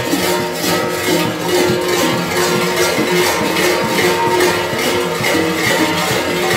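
Large kukeri bells (hlopki) worn by mummers, clanging and jangling together in a steady rhythm of about three strokes a second over their ringing tones.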